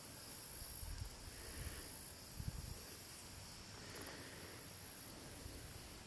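Faint outdoor ambience carried by a steady high-pitched insect chorus, crickets among it, with a few soft low rumbles about one and two and a half seconds in.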